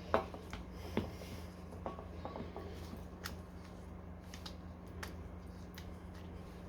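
Scattered sharp clicks and light metallic knocks of hand tools working on an electric scooter's wheel, the loudest near the start and about a second in, over a steady low hum.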